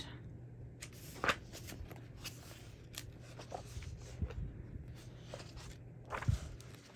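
Pages of a thick paperback coloring book being turned by hand: soft paper rustles with several sharper flicks as pages flip over.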